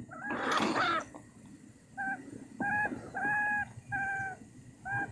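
Five short calls, each held at one steady pitch, a little under a second apart, from a small captive animal presented as a field rat (田鼠). A brief rustle comes before them.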